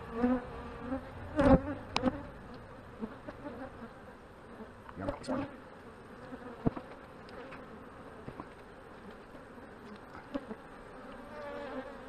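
Honey bees buzzing over an open hive, with single bees flying close by in louder buzzes that rise and fall in pitch. A few sharp clicks of wooden hive frames being worked loose and lifted.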